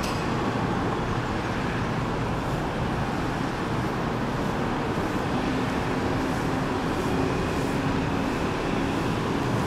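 Steady rumble of road traffic, with a faint low engine hum coming in about halfway through.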